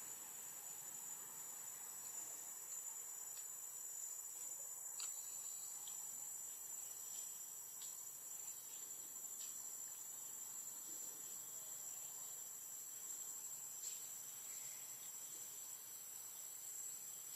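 Faint, steady, high-pitched drone of insects in the forest, with a few faint scattered ticks.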